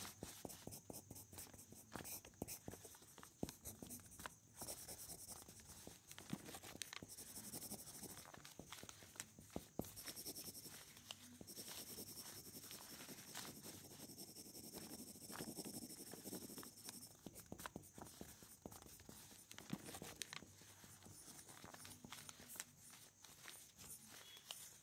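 Black fine-tip pen scratching on paper in short, quick strokes, faint, with many small irregular ticks as the nib touches down and lifts.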